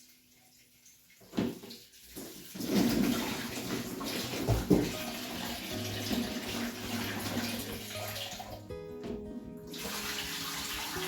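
Water running and splashing as things are washed, starting about two and a half seconds in after a single knock. There are a couple of louder knocks about four and a half seconds in, and the flow breaks off for about a second near the end.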